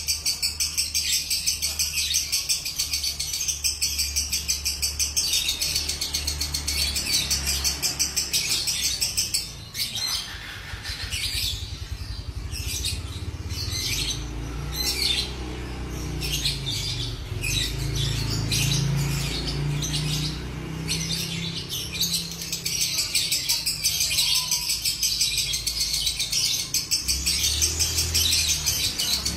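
Lovebird giving the long, rapid chattering call known as ngekek: a dense stream of high chirps that breaks into shorter separate bursts about a third of the way in and turns dense again near the end, over a low steady hum.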